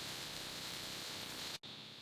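Faint, steady hiss with no distinct events, cutting off abruptly about a second and a half in.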